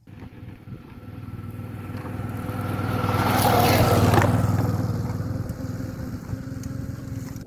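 Suzuki V-Strom 650 motorcycle's V-twin engine running at steady revs. A rushing noise swells to its loudest about four seconds in, then fades.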